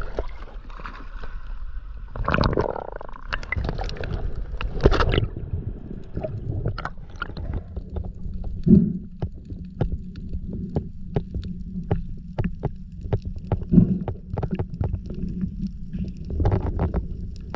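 Underwater sound: splashing and bubbling from the diver's movement at first, then a steady low hum from the loading ship's machinery carried through the water, with many sharp clicks throughout and two louder thumps.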